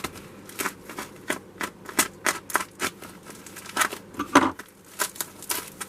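Parcel packaging being handled and opened: a run of irregular crinkles, rustles and clicks, the loudest about four seconds in.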